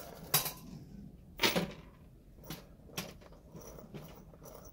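Loose metal screws being scooped up by hand off a rubber floor mat, clinking and clattering together, with two louder clatters about a third of a second and a second and a half in and a few lighter clinks after.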